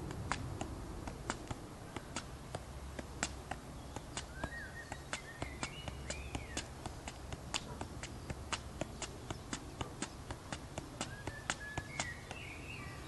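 A football being juggled with the feet: a run of short, sharp taps as the ball is struck by the foot again and again, about two to three touches a second.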